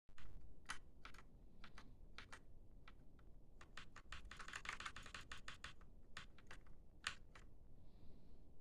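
Keys on a mechanical keyboard with red linear switches being pressed: scattered single keystrokes, with a quick run of presses in the middle.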